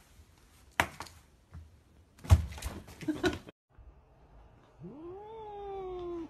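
A few soft knocks, then a cat's single long, drawn-out meow starting about five seconds in, rising in pitch and then slowly falling.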